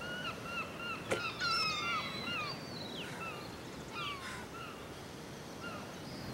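Birds chirping: many short, arched calls repeated in quick series, with a few falling whistles, over a faint steady outdoor hiss. A single sharp click about a second in.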